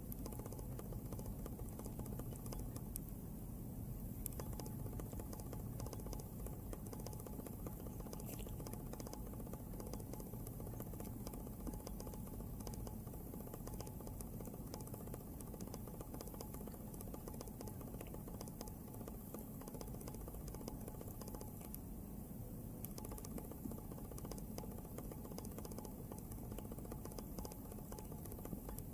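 Ginger tabby cat grooming itself up close: soft, wet licking and small clicking tongue and mouth sounds, with fur rubbing on the blanket, keeping on steadily.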